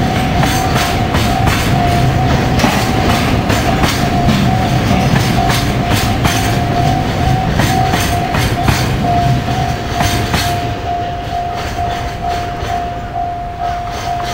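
A JR Freight train rolling through a level crossing, its wagon wheels clacking over the rail joints over a low rumble, while the crossing's warning bell rings on one repeated tone. The train noise fades over the last few seconds as the bell keeps ringing.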